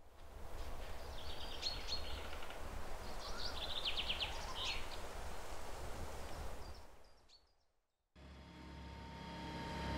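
Birds chirping over a low outdoor rumble, fading out about seven seconds in. After a brief silence, a Cat compact track loader with a forestry mulching head starts to fade in, its engine and spinning head growing steadily louder.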